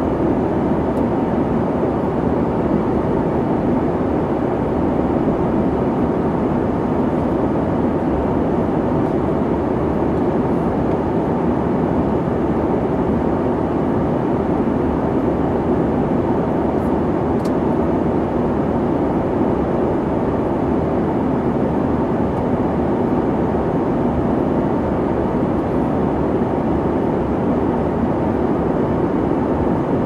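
Airliner cabin noise from jet engines and airflow: a steady, deep, even rumble that does not change.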